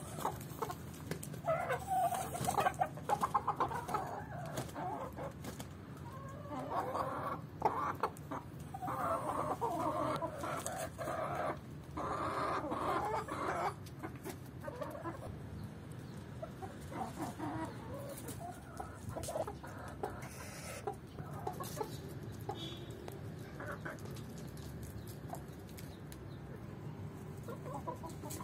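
A flock of chickens clucking, busiest through the first half and sparser later on.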